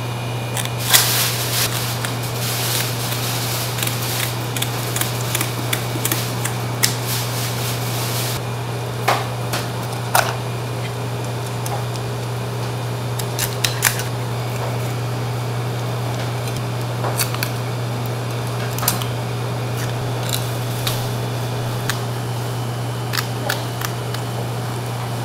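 Kitchen scissors snipping through a whole fish's fins and flesh, heard as scattered sharp snips and clicks, with some scraping work on the fish early on. A steady low hum runs underneath.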